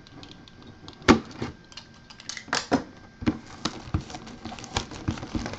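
Shrink-wrap being cut and peeled off a cardboard collectible box: a run of crinkles and sharp clicks, the loudest about a second in.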